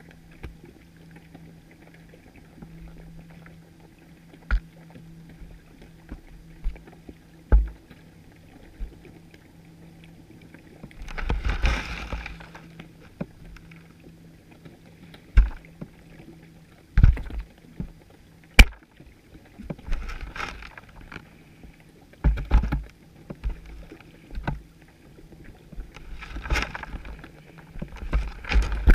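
Underwater sound heard through a GoPro's waterproof housing on a chum pot: irregular sharp knocks and bumps every few seconds, a few short surges of rushing water noise that come more often near the end, and a faint steady low hum.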